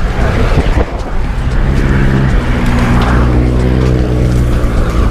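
Wind rushing over the microphone of a moving bicycle rider, with a motor vehicle's engine drone coming in about a second and a half in and holding steady.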